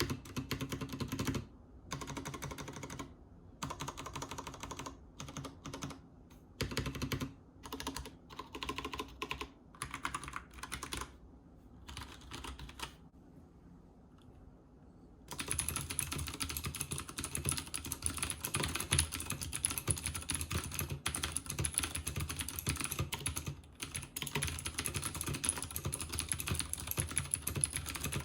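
Typing on a Leopold FC900R PD full-size mechanical keyboard with Cherry MX switches: short bursts of keystrokes with brief gaps, a pause of about two seconds, then about halfway through a long run of fast, continuous typing with a bright, clicky edge.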